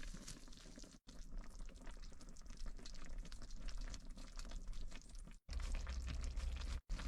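Food sizzling and bubbling in a pan, a busy fine crackle, broken by brief cuts to silence. From about five and a half seconds a deep low rumble sits underneath.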